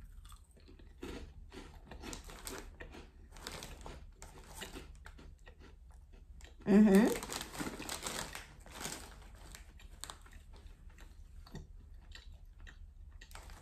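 Crunchy fish-shaped cheese crackers (Chio Goldfischli) being chewed, an irregular run of crisp crunches, with the foil snack bag crinkling in the hand. A short voiced sound about seven seconds in.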